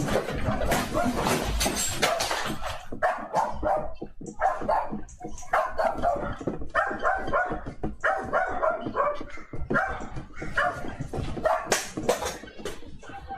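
A dog barking rapidly and repeatedly, in quick sharp barks several a second, after a loud rushing noise in the first couple of seconds.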